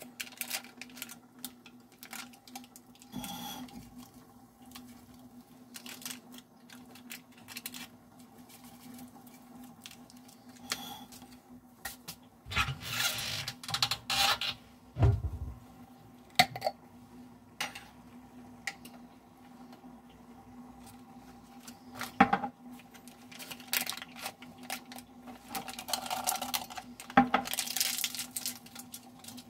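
Kitchen handling sounds: ramen seasoning packets crinkling as they are handled and emptied into a glass saucepan, with scattered clicks and knocks of things set down on the countertop. There are two louder rustling stretches and a dull thud, over a steady low hum.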